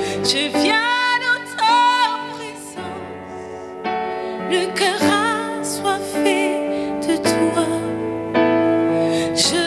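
A woman singing a slow worship song, with vibrato on long held notes, over sustained keyboard chords that change every one to two seconds.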